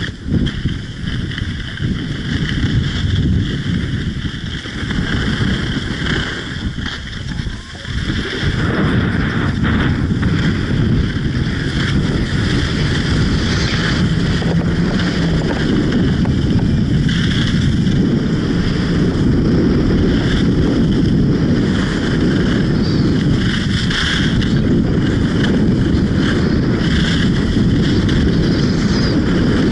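Wind buffeting the microphone of a pole-held action camera during a downhill ski run, with skis hissing and scraping over hard-packed groomed snow. The wind grows louder and steadier about eight seconds in.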